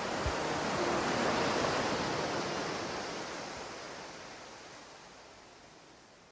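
A steady rushing noise, with no tune or beat, that swells for about a second and then fades out slowly as the soundtrack ends.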